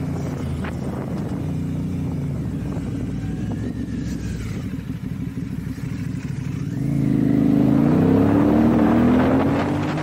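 Motorcycle engine running steadily under way, then accelerating about seven seconds in, its note rising and getting louder.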